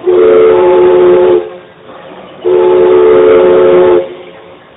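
Steam whistle of the Mark Twain sternwheeler riverboat, pulled by cord for two blasts of about a second and a half each, a chord of several steady tones, a second apart. The two blasts signal that the boat is five minutes out.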